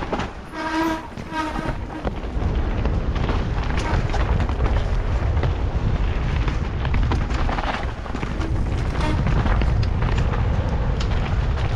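Mountain bike descending a rooted dirt forest trail, heard from the rider's camera: heavy wind rush on the microphone over the rumble and rattle of tyres and frame across roots and ruts. A short pitched squeal sounds twice about a second in.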